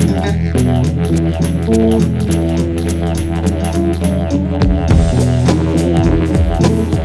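Didgeridoo playing a steady low drone while a guitar plays a plucked melodic line over it, with sharp rhythmic percussive hits running through the music.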